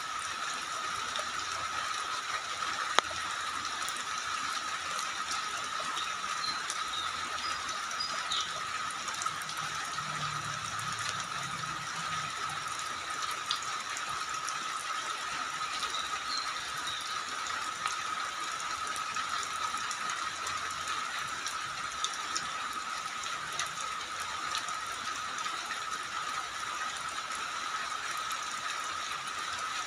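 Steady rain falling, an even hiss with scattered faint ticks and one sharper tick about three seconds in.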